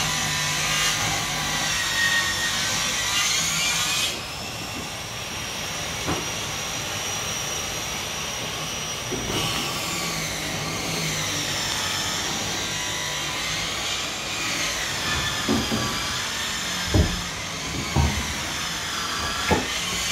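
A power tool's motor whining, its pitch wavering up and down as it runs, with a few hard knocks near the end.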